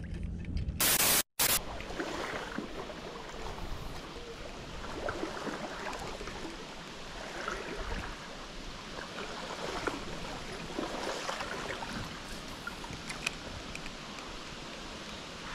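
Shallow stream running over a riffle, a steady rushing of water. About a second in, a brief loud burst of noise that cuts off abruptly.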